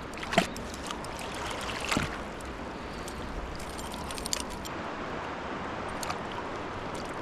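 River water rushing steadily over a riffle, with a few short clicks or splashes.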